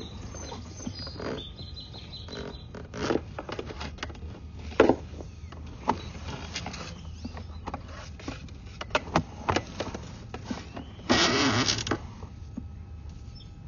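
Sewer inspection camera and its push cable being pulled back through the pipe: irregular knocks and clatter over a low steady hum. A louder scraping rush lasts about a second near the end, as the camera head leaves the pipe.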